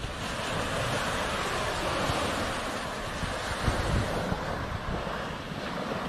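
Sea surf breaking and washing up on a sandy beach, a steady rush that swells about a second in, with wind gusting against the microphone as a low rumble around the middle.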